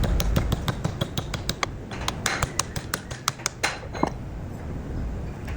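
A rapid, uneven run of sharp clicks, about five a second, that stops about four seconds in, over a low rumble.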